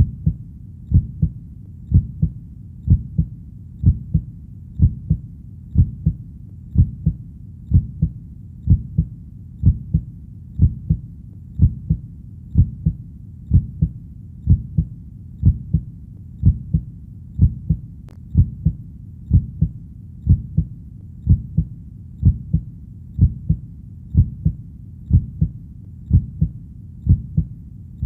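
Heartbeat sound: a steady, low lub-dub, each beat a doubled thump, repeating about once a second at an even resting pace.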